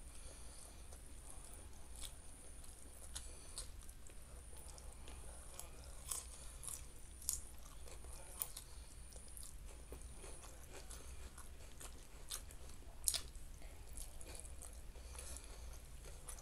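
Close-up sounds of a person chewing food with wet mouth noises and scattered small crunches and clicks, the sharpest about 6, 7 and 13 seconds in, over a faint low hum.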